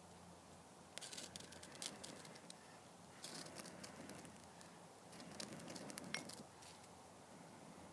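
Faint scraping strokes of a knife spine struck down a ferrocerium rod to throw sparks, in three short bursts: about a second in, around three seconds in, and near six seconds.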